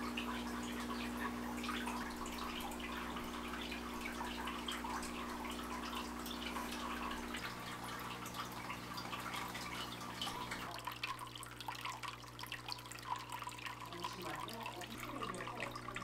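Water dripping and trickling, with a low steady hum of sustained tones underneath that shifts a few times.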